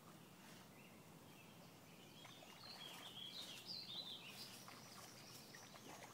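Quiet outdoor stillness with a small bird chirping a quick run of high notes from about two to four and a half seconds in.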